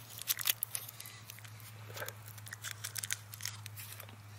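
Plastic sweet wrapper crinkling as it is handled and unwrapped, in short clusters of crackles that are loudest at the start and fade toward the end.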